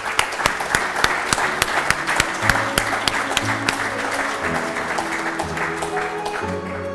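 Audience applauding over soft instrumental background music, the clapping thinning out near the end.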